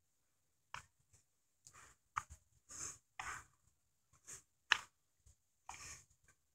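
Irregular short clicks, taps and rustles, about a dozen over a few seconds with quiet gaps between them, in a small room.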